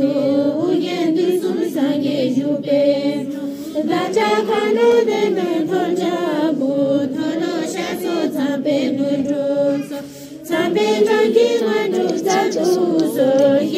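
Several voices chanting together in a slow, drawn-out, melodic Buddhist prayer recitation, with a brief break about ten seconds in.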